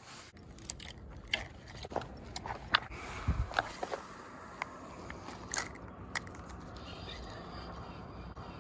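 Handling noise from a spinning rod and reel: a string of irregular sharp clicks and knocks, with one dull thump a little over three seconds in, then a steady low hiss.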